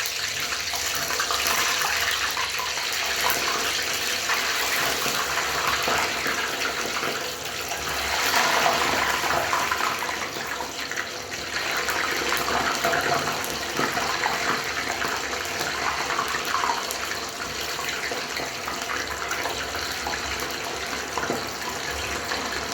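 Homemade potato fries deep frying in hot cooking oil: a steady, dense sizzle.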